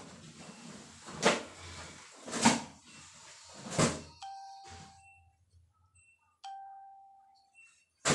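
Wet laundry slapped hard against a tiled floor three times, about a second and a quarter apart. Then two chime-like ringing tones, each fading over about a second.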